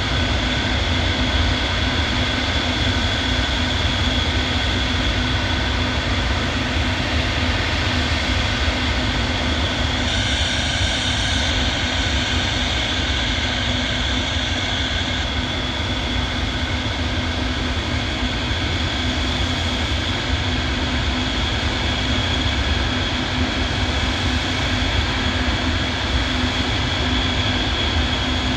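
Engines of a large Antonov transport aircraft running with a steady, dense noise and a constant high whine, a little brighter for a few seconds in the middle.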